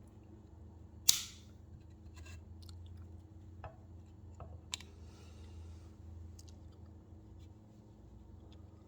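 Metal clicks and snaps of a Leatherman Super Tool 300 multi-tool as its folding tools are opened out: one sharp, loud snap about a second in, then a few lighter clicks and faint handling rustle.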